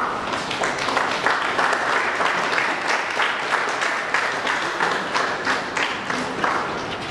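Audience applauding: a steady patter of many hands clapping that thins out near the end.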